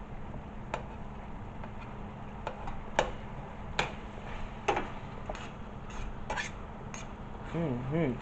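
A cooking utensil knocking and scraping in a pan at uneven intervals, about once a second, breaking up sausage as it cooks.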